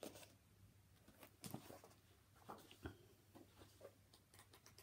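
Near silence with a few faint rustles and light taps of a hardback book's paper pages being handled and turned.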